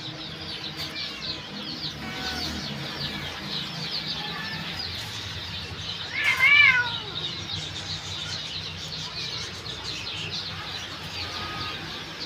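A cat meows once, loud, rising then falling, about six seconds in. Behind it is the constant high chirping of many small birds.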